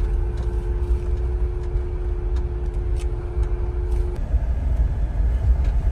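Cabin noise of a 2019 Jeep Wrangler JLU being driven: a steady low road-and-engine rumble. A steady two-note hum runs over it and cuts off suddenly about four seconds in.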